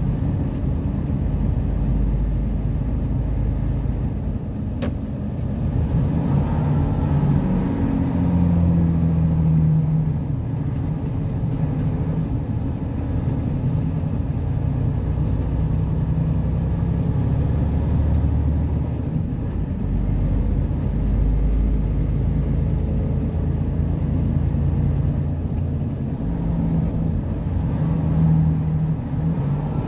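Vehicle engine and tyre rumble heard from inside the cab while driving at road speed: a steady low rumble whose engine note rises and falls a little in places.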